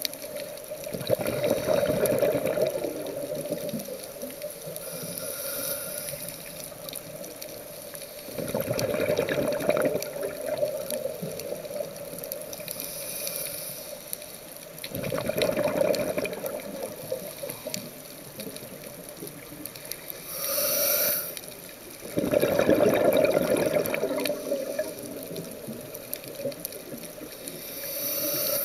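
Scuba diver breathing through a regulator underwater: a short high hiss of inhalation, then a couple of seconds later a longer rush of exhaled bubbles, repeating about every seven seconds, four breaths in all.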